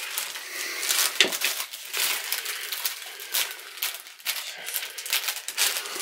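Crinkly wrapping rustling and crackling as it is handled, with light clicks and knocks scattered through.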